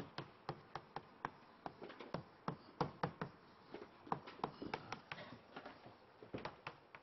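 Chalk writing on a blackboard: a quick, irregular series of light taps and clicks as the chalk strikes the board stroke by stroke.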